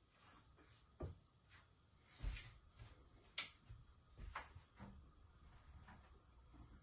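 Faint knocks and scrapes of a spatula against a nonstick frying pan as sugar and water are stirred, a handful of short separate taps over the first five seconds.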